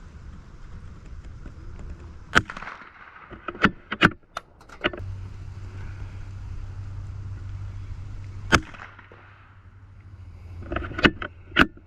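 Tikka T1X .22 LR bolt-action rifle shooting: a series of sharp cracks and clicks, some close together, consistent with shots and the bolt being worked between them. A low steady hum runs underneath and grows stronger for a few seconds in the middle.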